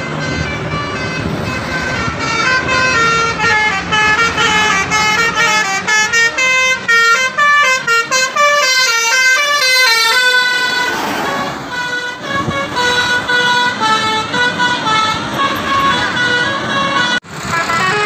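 Telolet horn on a tour bus: a multi-tone air horn playing a fast, repeating tune of stepped notes, loudest as the bus passes close, over the noise of road traffic.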